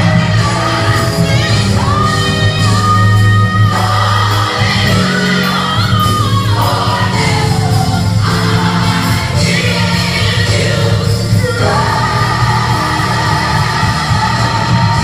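Gospel worship music with singing, loud and continuous, with a steady bass line under the sung melody.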